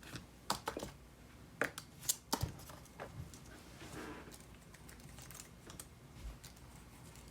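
Scattered light clicks and taps, several close together in the first three seconds and sparser after: cables and connectors being handled and plugged in.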